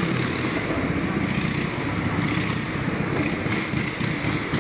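Motorcycle engine running steadily inside the wooden drum of a Wall of Death.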